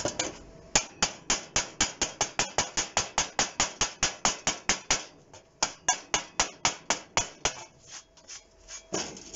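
Chipping hammer knocking slag off a fresh weld bead on steel plate cut from a gas bottle. Sharp metal strikes come fast and even, about four a second, then thin out to a few lighter taps near the end.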